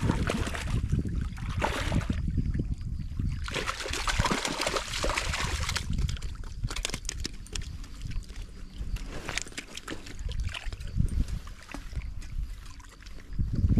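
Water sloshing and trickling, with an uneven low rumble and surges of hiss.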